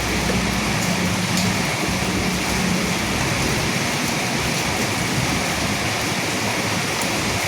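Steady rain falling on dead leaves, an even hiss. A low rumble fades out within the first second.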